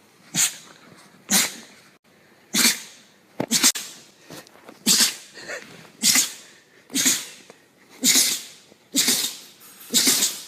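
A run of dog sneezes: about ten short, sharp, hissy bursts roughly a second apart, with a quick double sneeze a little past the third second.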